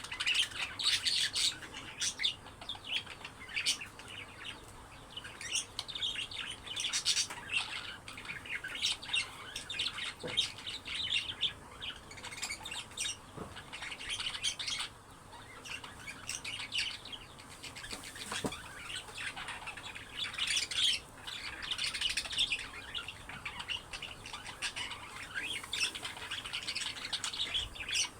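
Budgerigars chirping and chattering continuously, with many quick high chirps and squawks overlapping.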